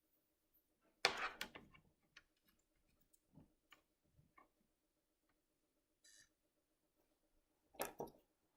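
Hands handling a laptop on a bench, with a clatter of clicks about a second in, scattered light ticks, and a double knock near the end, over a faint steady hum.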